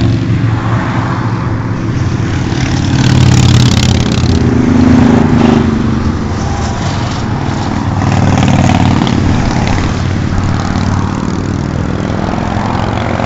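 Motorcycle engines running as a club ride goes by on the road, the engine sound swelling and easing several times as bikes pass.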